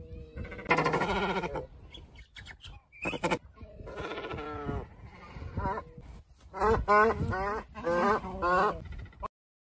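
Cormorants calling: a few drawn-out calls, then a quick run of about five short calls near the end, cutting off suddenly.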